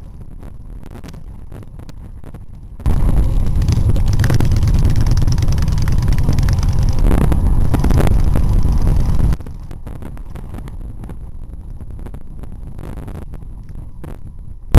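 Motor vehicle engine and road noise: a loud low rumble comes in suddenly about three seconds in and cuts off just as suddenly some six seconds later, with quieter road noise before and after. A short loud click right at the end.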